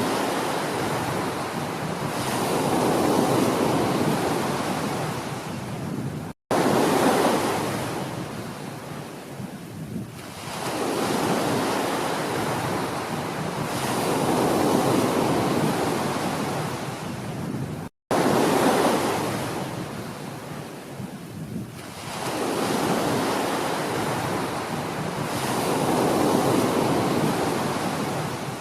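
Ocean waves washing onto a shore, the surf swelling and falling back every few seconds. The sound cuts out to silence for an instant twice.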